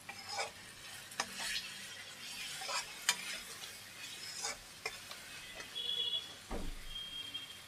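Metal ladle stirring and scraping thick masala paste with peas around a metal kadhai, with irregular scrapes and clinks over a soft sizzle as the masala fries. The oil has begun to separate from the masala, the sign that it is well roasted.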